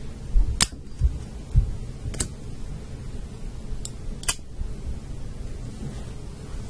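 Zippo lighter's hinged metal lid clicking open and snapping shut, four sharp metallic clicks spread over a few seconds, with low handling thumps in the first couple of seconds.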